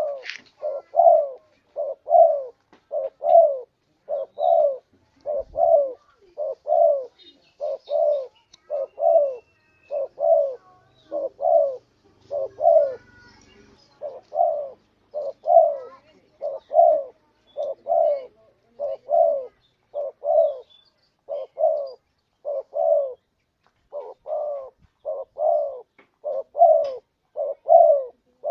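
Spotted dove cooing over and over, a steady run of short low coos at a little over one a second, with only brief pauses.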